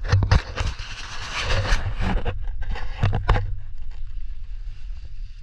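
Scuffing and scraping of a person scrambling over rock, soil and dry leaves, with a few sharp knocks at the start and again about three seconds in, over a low rumble from the body-worn camera rubbing and moving.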